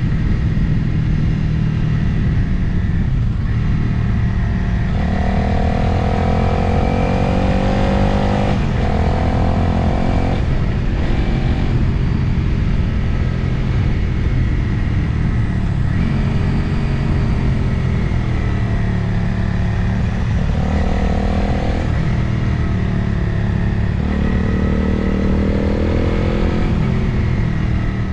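Motorcycle engine running under way, heard from the rider's camera with wind rushing past. Its pitch climbs several times as the bike accelerates, dropping back at each gear change.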